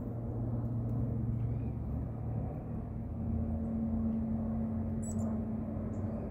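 Steady low mechanical rumble with a constant hum, like a distant engine or traffic. A small bird gives a brief high chirp about five seconds in.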